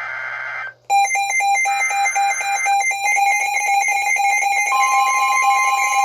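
A NOAA Weather Radio SAME data burst, a short buzzy warble ending under a second in, then Midland weather radios going into alarm: rapid electronic beeping at several pitches at once, with another brief data burst around two seconds in and a steady alert tone joining near five seconds. The alarms are set off by an incoming severe thunderstorm warning.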